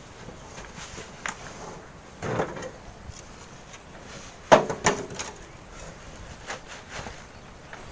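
Hand shovels scraping sand and knocking against metal pans: a scrape about two seconds in, a sharp knock about halfway through, and scattered lighter clicks.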